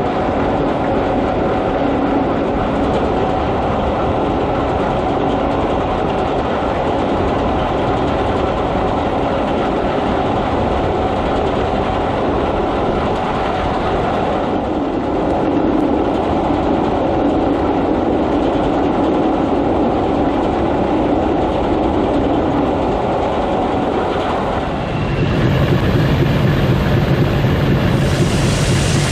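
Gleaner S98 combine running steadily while harvesting soybeans: a dense mechanical rumble with a rattling clatter. Near the end it changes to a louder, deeper drone.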